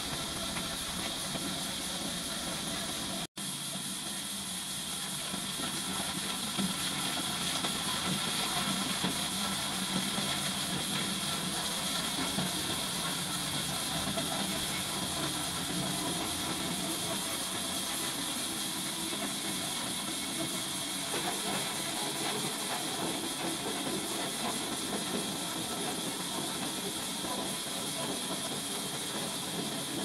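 Horizontal band sawmill running with a steady hiss, which cuts out for an instant about three seconds in.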